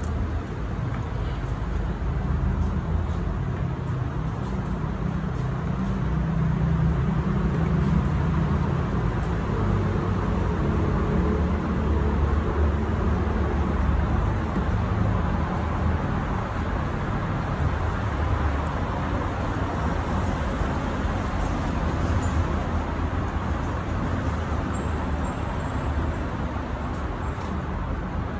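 Steady low rumble of road traffic, swelling through the middle and easing toward the end.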